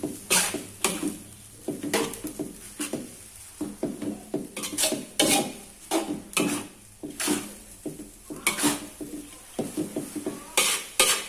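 Spatula scraping and knocking against a metal wok as rice vermicelli is stirred, in irregular strokes about two a second.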